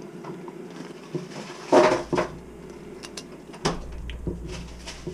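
A kitchen knife cutting at a bluegill's fin on a wooden cutting board: a few scraping and knocking sounds, the loudest about two seconds in and a sharp knock a little later, over a steady low hum.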